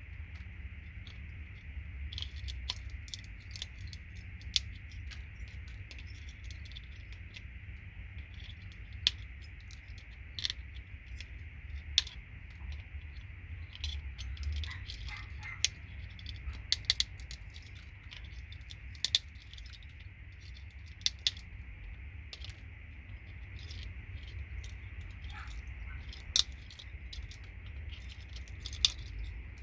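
Scattered sharp clicks and small metallic jingles as gold-plated RJ45 jack pins are pulled out of their plastic housings and handled. A low steady hum runs underneath.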